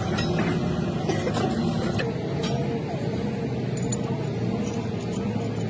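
Heavy machinery running steadily, a low engine rumble, with men's voices and a few light metallic clinks.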